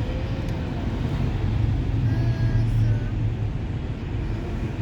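A car's engine and tyre noise heard from inside the moving car's cabin: a steady low drone.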